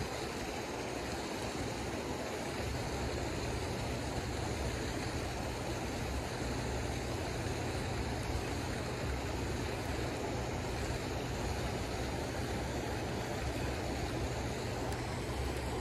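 Steady rush of flowing creek water, even and unbroken, with a faint low hum underneath.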